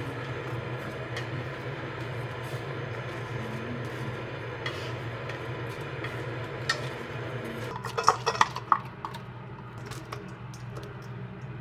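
Wooden chopsticks tapping and scraping on a frying pan as dumpling wrappers dry-toast without oil, over a steady low hum. About eight seconds in comes a quick run of sharp clinks of utensils against a pan.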